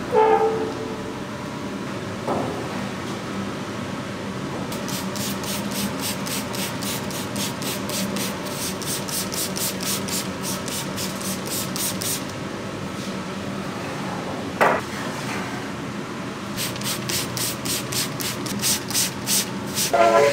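Rhythmic rubbing strokes, about four a second, in two runs with a pause between them, over a steady low hum. A short squeak sits at the very start.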